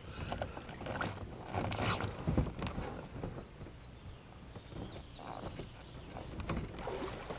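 Water sloshing and a few light splashes and knocks against a bass boat's hull as a man reaches over the side into the water. A bird calls about three seconds in, a quick run of about five high notes, with fainter repeats a little later.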